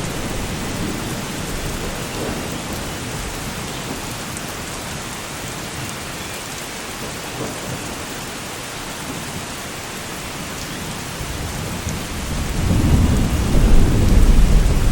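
Steady heavy rain hissing on surfaces, with a low rumble of thunder rolling in about twelve seconds in and growing louder to the end.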